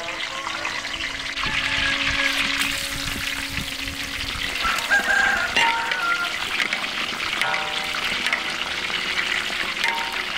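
Whole freshwater fish deep-frying in a large wok of hot oil: a dense, steady sizzle, with one sharp knock about halfway through.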